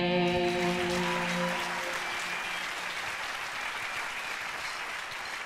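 The band's final held chord rings out and dies away over the first two seconds while a studio audience applauds; the applause then carries on alone, slowly fading.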